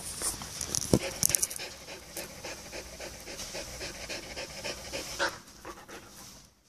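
A Belgian Malinois detection dog panting quickly and rhythmically with its mouth open after the search game for its tennis ball, with a sharp click about a second in. The panting fades out just before the end.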